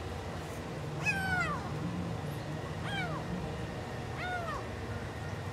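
A tiny tuxedo kitten meowing three times, high-pitched cries about a second and a half apart, each falling in pitch.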